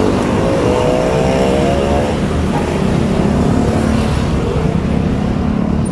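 Street traffic close by: vehicle engines running, with one engine note standing out over the first two seconds.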